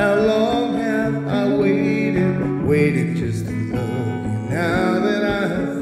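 Music: guitar chords held under a wavering melody line that comes in three short phrases.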